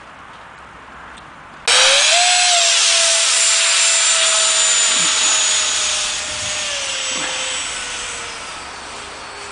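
Electric motor of a radio-controlled model Saab Viggen jet at full power: a loud, high whine that starts suddenly about two seconds in, then slowly drops in pitch and fades as the plane flies past and away.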